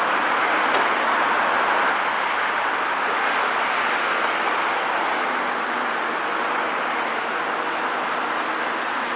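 Cat 323 E excavator running steadily, an even machinery noise with no clear revs or knocks.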